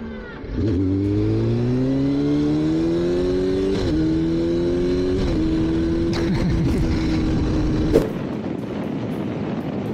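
Sport motorcycle engine catching about half a second in and pulling away, its pitch rising as it accelerates, with two small dips as the gears change. A sharp click at about eight seconds, then a quieter, steady riding noise.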